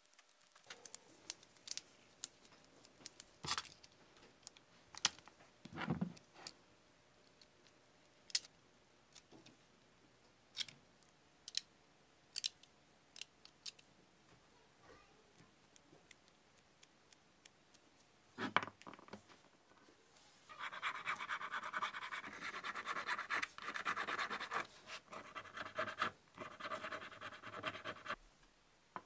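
Scattered light clicks and taps as small cast-iron parts are handled, then, about twenty seconds in, a metal blade scraping a small cast-iron piece. The scraping is a rapid rasping run lasting several seconds with brief breaks.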